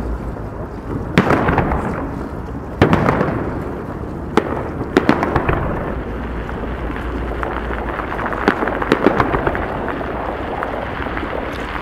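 Aerial firework shells bursting: sharp bangs about one, three and four and a half seconds in, each trailing off in a rumbling echo, then clusters of smaller pops later on.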